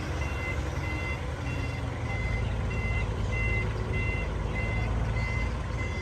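Reversing alarm of a heavy earth-moving machine beeping steadily, about two to three short beeps a second, over the low rumble of its running engine.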